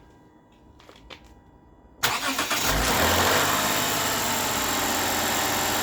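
2008 Lexus IS250's 2.5-litre V6 starting about two seconds in, flaring briefly and then settling into a steady idle. This is the first start after new spark plugs and a new PCV valve were fitted to cure misfires.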